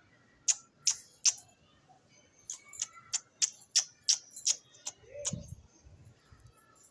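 Pigeons pecking at a clay bowl: about a dozen short, sharp ticks, roughly three a second, with a duller thump about five seconds in.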